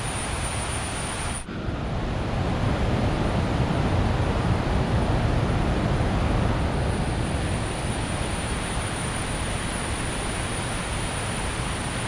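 Steady rushing noise of river water, heaviest in the low end, with a brief sudden dip about one and a half seconds in.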